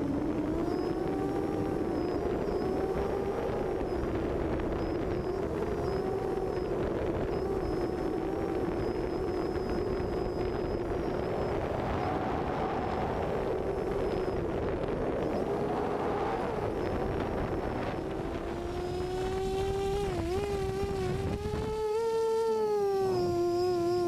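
Quadcopter's brushless motors (Cobra C2213 2000kv) spinning 6×4.5 propellers: a buzzing whine that wavers up and down in pitch with the throttle, mixed with wind noise. Near the end the wind noise drops away and the whine gets stronger and steadier.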